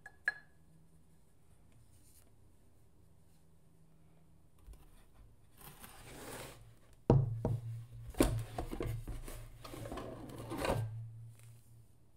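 Porcelain mugs handled in a cardboard gift box: a brief ringing clink at the start, then a quiet stretch, then cardboard rustling and scraping as a mug is worked out of its divided compartment, with a sharp knock about seven seconds in and several lighter knocks over the next few seconds.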